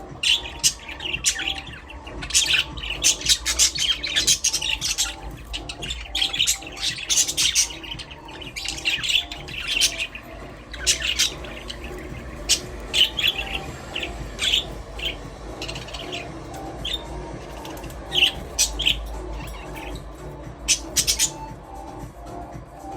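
A flock of budgerigars chirping and chattering, with many short, sharp calls overlapping and a sparser stretch midway.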